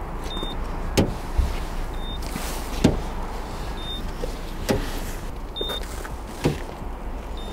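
Paint thickness gauge beeping four times, a short high beep about every two seconds, as its probe is set against the car's body panels to check for repainted panels. A light tap falls between the beeps, and a low steady hum runs underneath.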